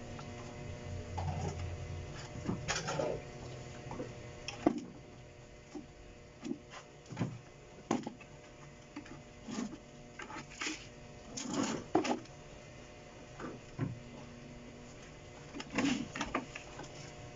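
Hollow plastic containers knocking and scraping against each other and a plastic tub, with irregular clicks and rustles of handled potting soil. Near the end comes a short rush of soil poured from a plastic scoop. A faint steady hum runs underneath.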